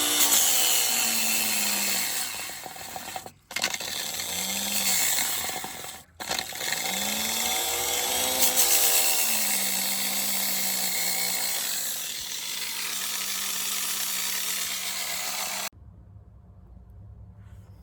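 An electric angle grinder grinding on a steel brake caliper, its motor pitch sagging and recovering several times, then cutting off suddenly near the end. The grinder is old and overheating, with an intermittent fault.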